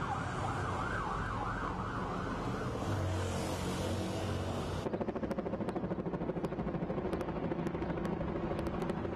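An emergency vehicle siren wailing up and down over street traffic, fading out after about three seconds. Then, from an abrupt change about five seconds in, a police helicopter's rotor beating in a fast, even rhythm overhead.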